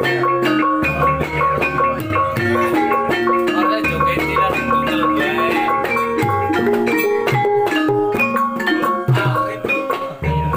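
Javanese gamelan playing a gending: bronze kettle gongs and keyed metallophones ring out a struck melody over a hand drum, while deep hanging-gong strokes hum underneath, starting a few times.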